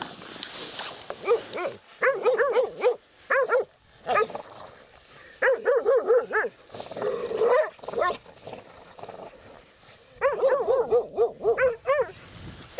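Laika hunting dog barking in rapid bursts of several barks each, with short pauses between bursts: baying at a badger cornered in its burrow.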